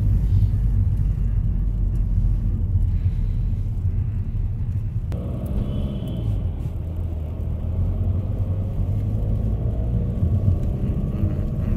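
Steady low rumble of a car driving through city streets, engine and road noise heard from inside the moving car. The sound changes abruptly about five seconds in, with more higher-pitched road noise on top of the rumble.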